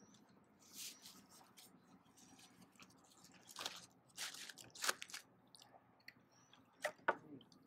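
Aluminium foil food wrapper crinkling and rustling in a few short, sharp bursts as it is handled, faint against quiet outdoor background.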